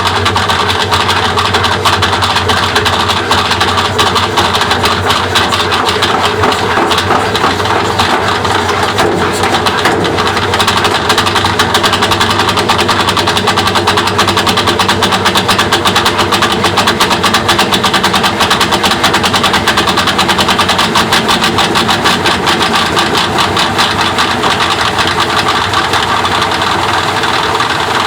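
A machine running steadily with a fast, continuous rattle over a constant hum. The owner suspects the rattle comes from coins caught inside it.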